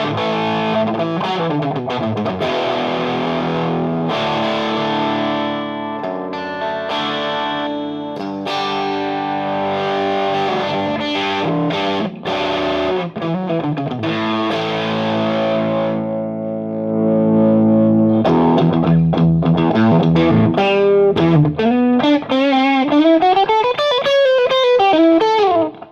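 Electric guitar (PRS S2 Custom 24) through a Frantone Hep Cat overdrive pedal into a clean Marshall JVM amp: distorted chords ringing out, then about two-thirds of the way in a louder lead line with string bends and vibrato.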